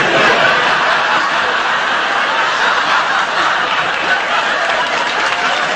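Sustained laughter from a studio audience, with a man chuckling as he breaks up mid-take.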